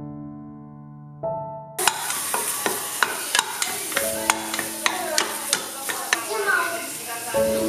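Piano music at first, then from about two seconds in crushed ginger sizzling in hot oil in a pressure cooker pot while a wooden spatula stirs it, knocking against the pot in quick sharp taps.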